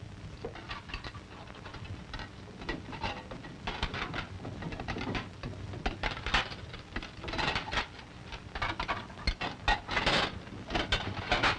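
Dishes and plates clattering and clinking as they are washed and handled at a kitchen sink: irregular knocks that come thicker and louder in the second half, over the steady hum and hiss of an old film soundtrack.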